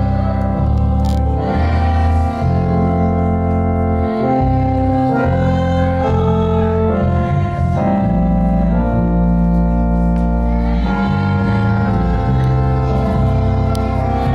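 Organ playing held chords over a deep bass line, the chords changing every second or two.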